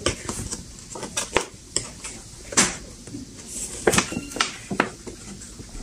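Brown paper shopping bag being handled and pulled open, crinkling and rustling in a string of short, irregular crackles.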